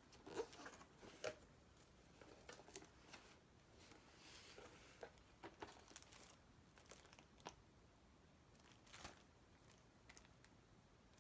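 Faint rustling and crinkling of packaging being unwrapped by hand, with scattered light taps and clicks and a longer rustle about halfway through.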